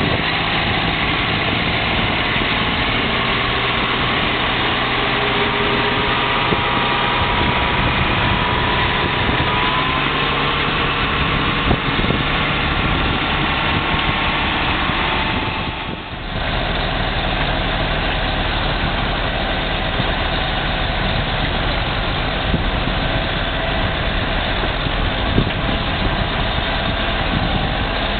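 Motor grader's diesel engine running steadily under load as it pulls a multi-tyre packer/roller along a gravel road. The sound dips briefly about sixteen seconds in.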